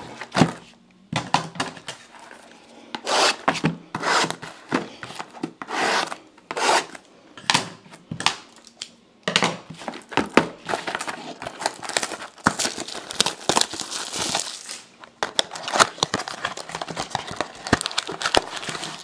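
Plastic wrapping and cardboard of trading card boxes crinkling, tearing and scraping as the boxes are opened and handled by hand: irregular rustles, with a longer stretch of continuous crinkling about two-thirds of the way through.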